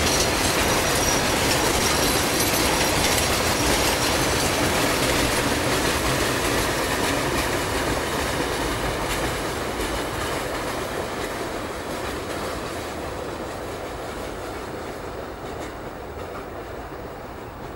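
Freight train wagons rolling over a curved concrete viaduct: a steady rolling clatter of wheels on rail with some wheel squeal on the curve. The sound fades gradually from about six seconds in as the train draws away.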